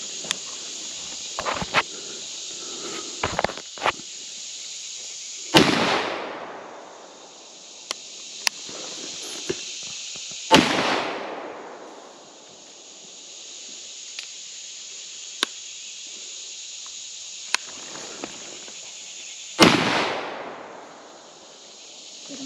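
Three shotgun shots, about five and then nine seconds apart, each with a long fading echo through the woods. Between them come a few small clicks and snaps, over a steady high insect chorus.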